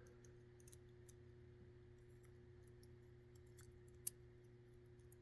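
Faint small metal clicks from tweezers working pins and springs out of a disassembled Dorma mortise lock cylinder, with one sharper click about four seconds in, over a steady low hum.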